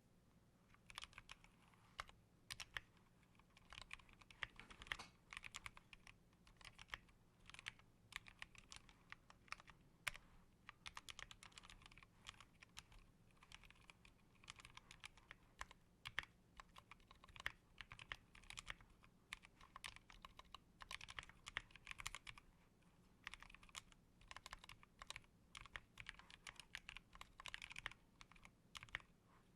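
Steady typing on a Massdrop ALT High Profile mechanical keyboard fitted with Halo True switches lubed with Krytox 205: a quick, irregular run of fairly quiet key clicks with short pauses between flurries.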